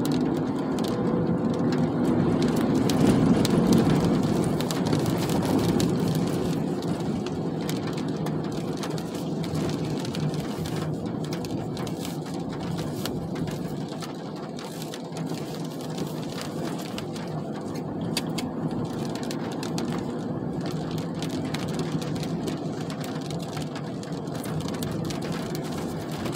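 Car interior noise while driving: a steady hum of engine and tyres, a little louder over the first few seconds and easing off after, with faint ticks of rain on the windscreen.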